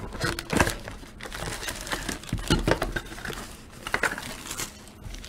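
Clear plastic shrink-wrap crinkling and tearing as it is stripped off a trading card box, with light cardboard rustles and taps as the box is opened.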